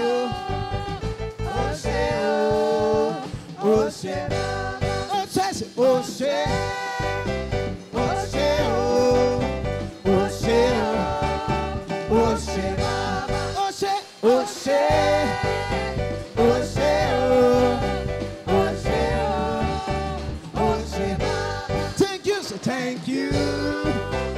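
Live gospel praise music: a male lead singer vocalizing melodic runs over electric keyboard and drums.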